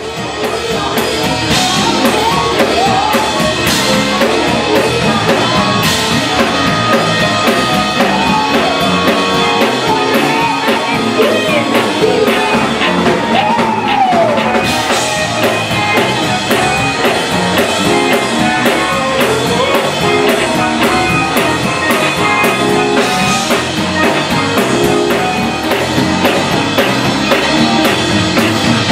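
Live gospel music: a band with drum kit and guitar playing while a singer's voice slides over it.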